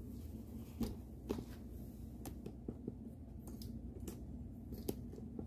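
Quiet handling of clothing and small items on a table: soft fabric rustle as a child's shirt and pants are moved and laid out, with a scattering of light clicks and taps over a low room hum.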